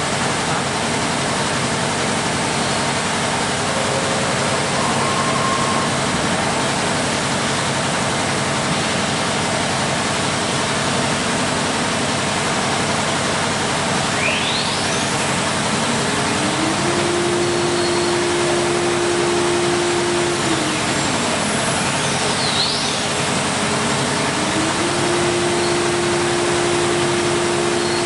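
Steady loud running noise of an ATC CNC router, with its 9 kW HSD spindle whining up to a steady high tone about halfway through, winding down a few seconds later, then spinning up and holding again near the end.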